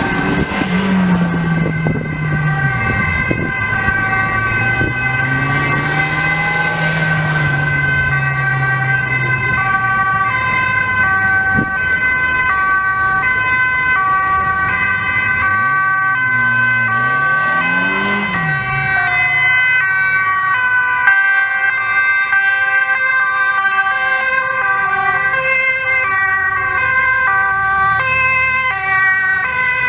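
Several Dutch emergency vehicles drive past in convoy, their two-tone sirens overlapping and switching between high and low notes about once a second. Police motorcycle engines rise and fall in pitch as they go by, first at the start and again about two-thirds of the way in.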